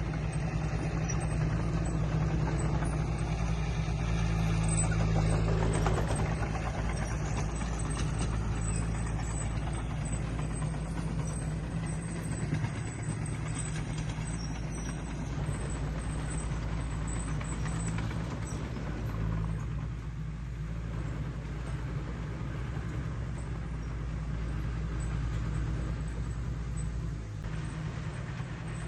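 Heavy diesel earthmoving machinery running steadily at work, a low engine drone with mechanical clatter over it.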